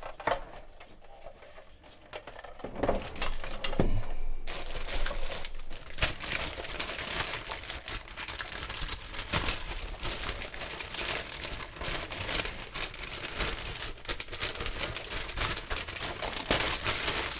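Packing material crinkling and rustling as it is handled, with a few light knocks in the first few seconds before a dense, continuous crinkling starts about four seconds in.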